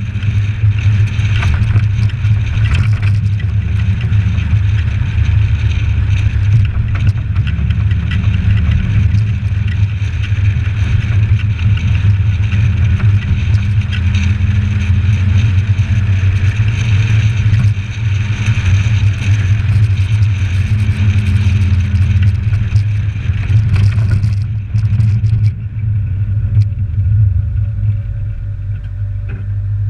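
Suzuki Samurai 4x4 driving on a road: a steady, loud low engine-and-road rumble with a hiss of wind and tyre noise above it, muffled through a sealed GoPro case. About 25 seconds in the hiss falls away and the low rumble carries on.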